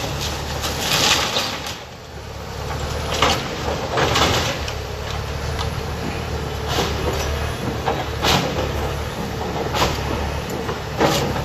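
Caterpillar 336F hydraulic excavator demolishing a wood-frame house: its diesel engine runs steadily while the bucket and thumb break into the structure, with a crash of splintering wood and falling debris every second or two.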